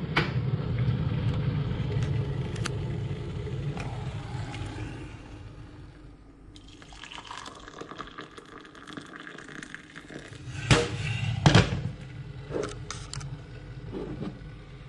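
Electric kettle rumbling near the boil, fading away over the first few seconds. Then hot water is poured from the kettle into a ceramic mug, followed by two loud knocks and a few lighter ones as the kettle and mug are put down and handled.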